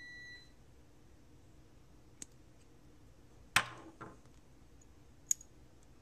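Sharp clicks of a flat-head screwdriver pushing a crimped contact into a red Anderson Powerpole housing. The loudest click, a little past halfway, is the sign of the contact's lip snapping over the housing's spring. A brief high beep sounds at the very start.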